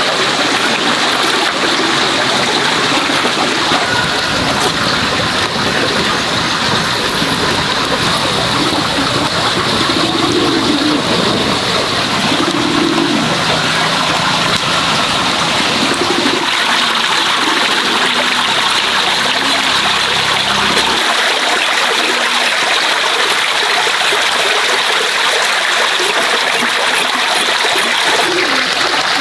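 Steady rushing of a shallow stream. Near the end, water splashes into a plastic basin.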